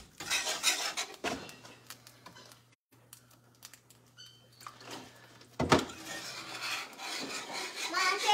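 Wire whisk clicking and scraping against a cast-iron skillet while whisking milk gravy, going quiet for a few seconds in the middle. A sharp knock comes about two-thirds of the way through, and the whisking then resumes.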